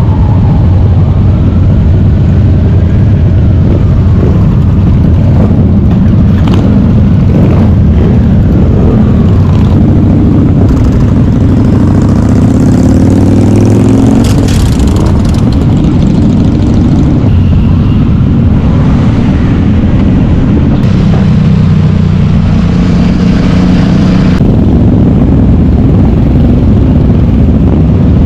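A group of motorcycles running and revving, recorded close from one of the bikes in the pack, with engine pitch rising and falling as the riders pull away and accelerate.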